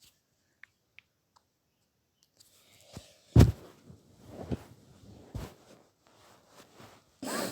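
Rustling handling noise with several sharp knocks, the loudest about three and a half seconds in, after a couple of seconds of near silence with faint ticks.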